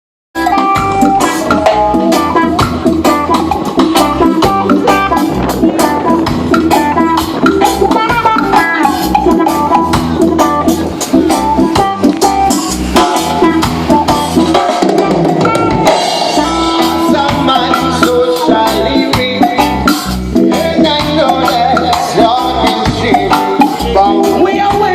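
Live band playing an upbeat song with drum kit, guitar and bass, loud and steady from the first moment.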